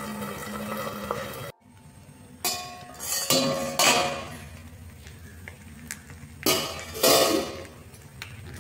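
Steel plate used as a lid clinking and clattering against a cast iron pan as it is handled, several short metallic knocks.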